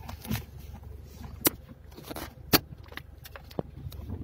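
Steady low hum of a car heard from inside its cabin, with a scattering of sharp clicks and knocks, two of them loud, about a second and a half and two and a half seconds in.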